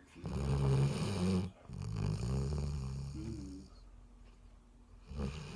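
Dog snoring in its sleep: two long, low, rattling snores back to back, then a short pause before the next snore begins near the end.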